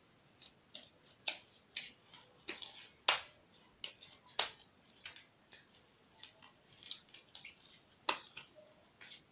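Homemade slime of glue, paint and baking soda being stirred and worked by hand, giving irregular sticky clicks and wet smacks, about one or two a second.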